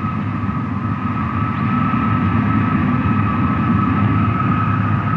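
Engine running steadily: a low rumble under a high, steady whine, growing slightly louder over the first couple of seconds.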